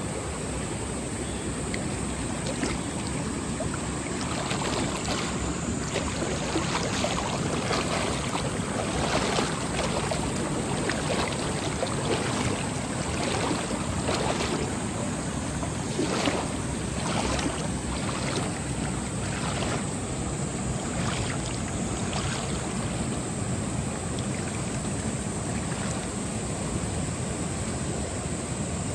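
Mountain stream water rushing and splashing over rocks, a steady rush with many brief louder splashes through the middle stretch.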